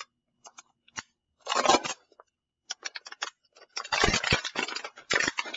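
Scissors cutting through a thin plastic water bottle, giving crunchy snips and crackling plastic in several short bursts. The longest and loudest burst comes about four seconds in.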